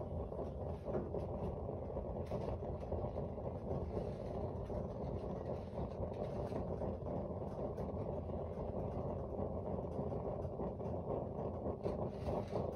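Sengoku/Aladdin GKP-P248N kerosene heater burning with a blue flame just after lighting, giving a steady, low burning noise with faint crackles. It is the sound of the start-up phase, before the burner head heats to red and the heater goes quiet.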